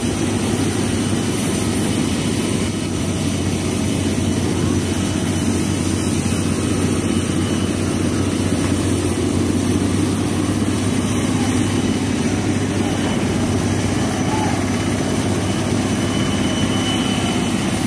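Steady jet turbine noise on an airport apron: a loud low hum with thin, high, steady whining tones.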